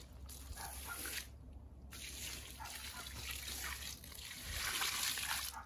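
Water trickling and splashing, with a short break about a second and a half in.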